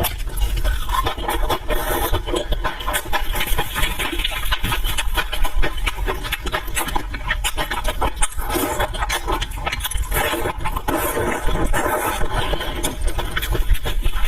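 Close-miked eating sounds: wet chewing and a dense, continuous run of small mouth clicks.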